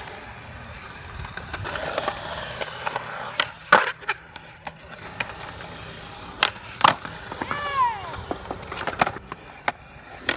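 Skateboard wheels rolling over concrete, with several sharp clacks of the board striking the ground, the loudest about a third of the way in and again about two-thirds in.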